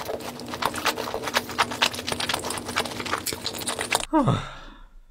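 Mukbang eating sounds: rapid wet smacking and chewing clicks, close and loud. They stop abruptly about four seconds in, followed by a short sound sliding steeply down in pitch.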